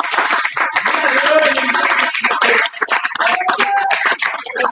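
An audience clapping, dense and irregular, with people's voices over it.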